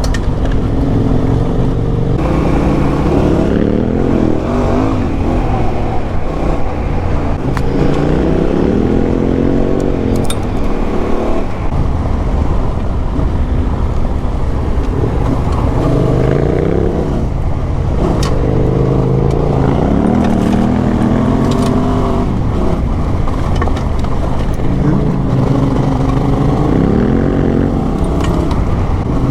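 Motorcycle engine on the move, its pitch climbing as it accelerates and then dropping back at each gear change, several times over, with a constant low rumble underneath.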